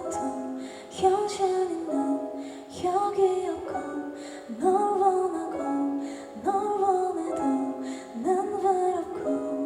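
Slow ballad played live through a concert PA, with a female voice and a repeating melodic phrase at the opening of the song.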